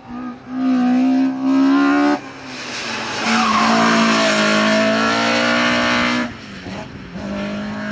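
VW Polo slalom car's small four-cylinder engine, 1.3 litres at most, revving hard under full throttle. It drops off sharply about two seconds in, then pulls hard again for about three seconds as the car passes close, with tyre squeal from the sliding tyres. The engine lets off again near the end and picks up once more.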